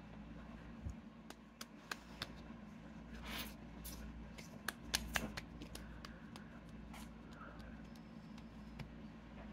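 Hands rubbing and patting skincare product into the face and neck: faint scattered taps and soft rubbing, with a brief brushing swish about three and a half seconds in, over a low steady hum.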